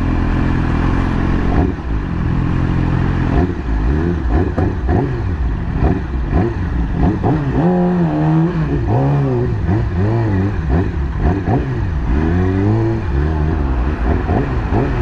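2020 Yamaha YZF-R6's inline-four engine running while riding in traffic, its pitch rising and falling again and again with the throttle, over a steady low rumble.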